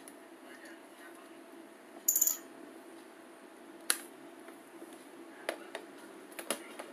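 Clips snapping and plastic and metal clicking as a Xiaomi Mi A1's metal back housing is pried off its screen assembly. A short crackling scrape comes about two seconds in and a sharp snap just before four seconds, then a few lighter clicks as the parts are handled. A steady low hum runs underneath.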